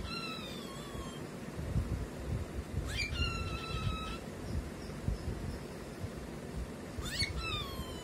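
Cockatiel giving three loud contact calls about three to four seconds apart, each a quick upward sweep into a held whistle that falls slightly in pitch, over a steady low rumble.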